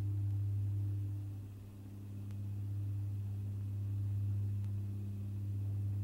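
A steady low hum with a few fainter, higher steady tones above it, dipping slightly in level about a second and a half in.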